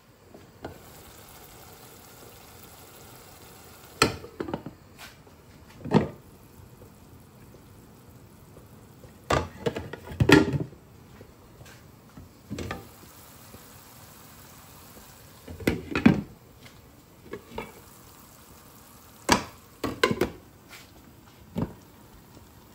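Cookware clattering: metal pots, lids and spoons knocking in irregular bursts as spices are added and stirred into several pans on the hob, over a faint steady sizzle.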